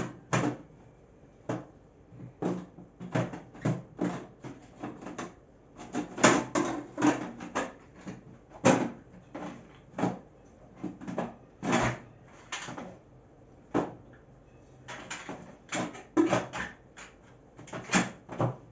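Irregular clicks and knocks of kitchen handling: many short, sharp strikes at uneven gaps, some with a brief ring, as a pot lid and kitchen items are handled.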